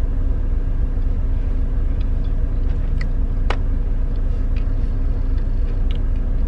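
Steady low rumble of a semi truck's engine running, heard inside the cab, with a couple of faint clicks about three seconds in.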